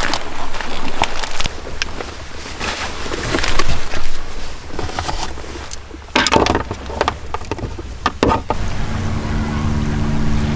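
Plastic food packaging crinkling and being torn, with clatter of handling and utensils, loudest about four seconds in. Near the end this gives way abruptly to a steady low hum.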